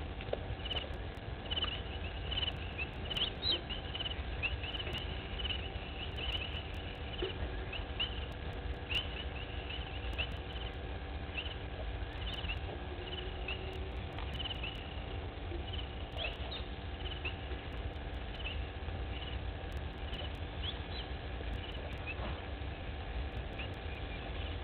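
Dusk bushveld ambience: a continuous scatter of short, high chirps, several a second, from small wildlife, over a steady low rumble.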